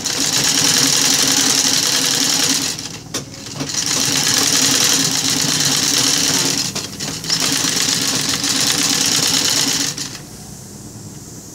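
Sewing machine stitching ruffled fabric strips onto a burlap rug backing, run in three steady bursts of about three seconds with short pauses between, stopping about ten seconds in.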